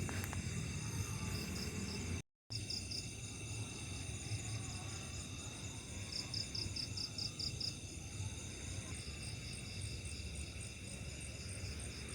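A chorus of night insects such as crickets: several steady high-pitched trills and fast pulsing chirps, over a low background rumble. The sound cuts out completely for a moment about two seconds in.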